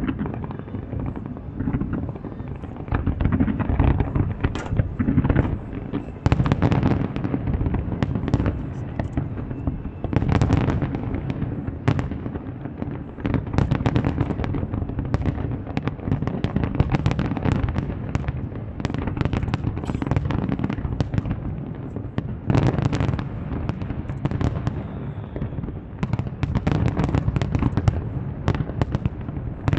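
Fireworks display: aerial shells bursting in a dense, continuous stream of overlapping bangs and crackles, over a steady low rumble.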